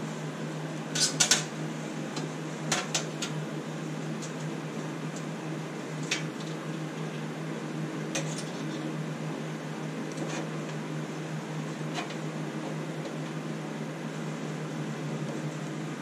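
Wires and a switch being handled at a sheet-metal housing: scattered light clicks and rattles, the loudest about a second in, over a steady mechanical hum.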